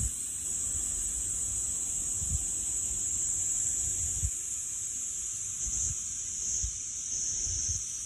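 Steady high-pitched drone of cicadas, with a few low bumps on the microphone scattered through it. No meowing is heard.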